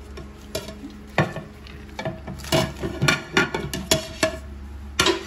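A plate knocking and clinking against a metal pressure cooker as dry ingredients are tipped and scraped in. It makes a run of sharp clinks, most of them packed between about two and a half and four and a half seconds in.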